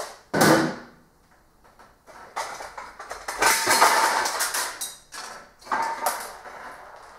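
A drawer of loose metal washers being handled and rummaged through: bursts of clattering metal, with a short pause after the first one and the longest, loudest clatter around the middle.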